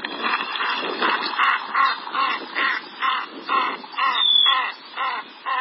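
Canvasback calling: a steady series of short, harsh calls, about two to three a second.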